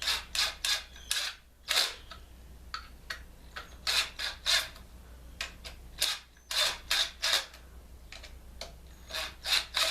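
Short irregular groups of sharp mechanical clicks and scrapes as two screws are turned a little at a time into a wood plug stuck in a hole saw, to draw the plug out.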